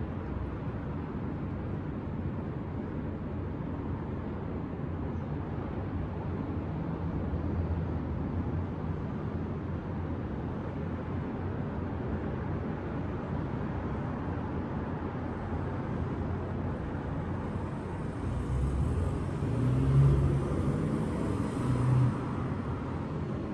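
Steady city traffic rumbling from the street below. Near the end a louder vehicle passes, swelling up and then fading, with a faint high hiss above its rumble.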